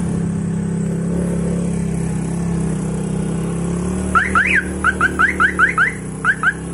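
Motor scooter engine running steadily as it rides along. About four seconds in comes a quick run of about a dozen short, loud, rising chirps, the loudest sound here.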